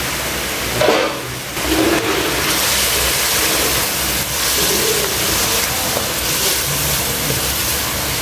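Chicken and onion pieces frying in a bubbling dark sauce in a wok, with a steady loud sizzle that dips briefly about a second in. A spatula stirs them through the second half.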